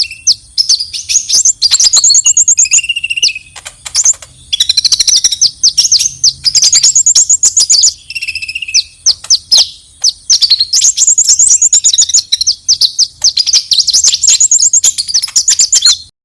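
Konin bird's fighting call: loud, rapid high chirps and trills in quick bursts, with a couple of lower whistled notes. It cuts off suddenly near the end.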